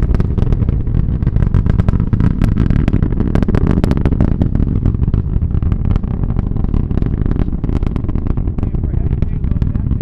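SpaceX Falcon Heavy's 27 Merlin engines in ascent, heard from about three miles away: a loud, deep, steady rumble shot through with rapid crackling. It eases slightly after about six seconds.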